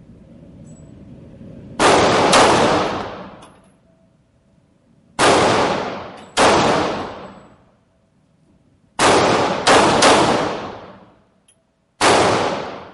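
Eight gunshots fired one at a time at an uneven pace, some in quick pairs and a triple, each followed by a long fading echo.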